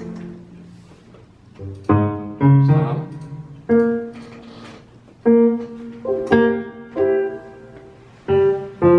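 Slow, separate piano notes from a sampled piano played on a MIDI keyboard and heard through studio monitor speakers. They begin about two seconds in, each note starting sharply and ringing on, with short pauses between them.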